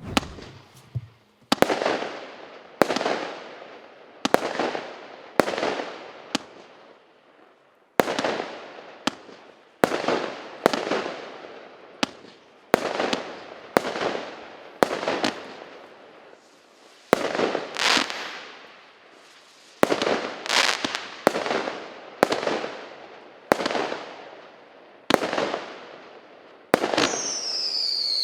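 A 26-shot 0.8-inch fireworks cake (P7314 Sombrero battery) firing shot after shot, with sharp bangs about one a second, each trailing off as it fades. Near the end a whistle falls in pitch, from the whistling comet shot.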